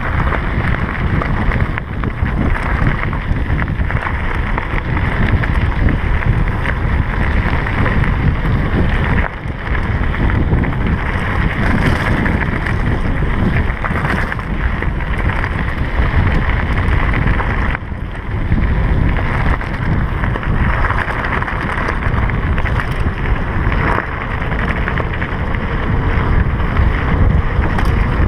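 Wind buffeting a GoPro's microphone and mountain bike tyres rolling fast over loose gravel, a loud steady rush with brief dips about 9 and 18 seconds in.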